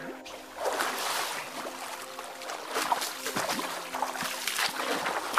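River water splashing in irregular splashes, about one a second, over a steady wash of moving water.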